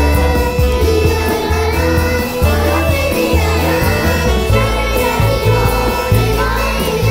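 A children's song: young children singing over an acoustic band with a bass line of held low notes.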